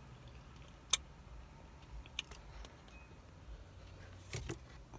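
Biting into a sauced chicken wing and chewing, with one sharp click about a second in and a few smaller mouth clicks after it, over a low steady hum inside a car.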